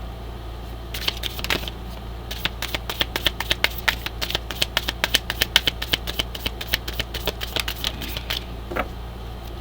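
Oracle card deck being shuffled by hand: a rapid run of light card clicks, several a second, over a steady low hum.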